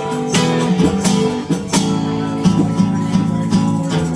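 Music with a strummed acoustic guitar, in a flamenco or Latin style.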